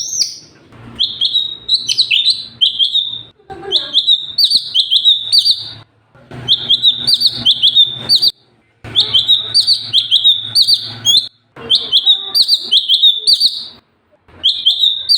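A cucak cungkok singing loud, rapid bursts of sharp, high chattering notes in phrases about two seconds long, with brief pauses between them.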